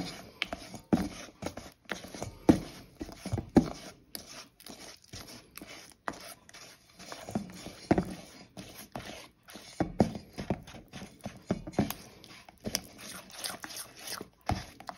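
Silicone spatula stirring and scraping a thick peanut butter batter around a stainless steel bowl, in irregular strokes.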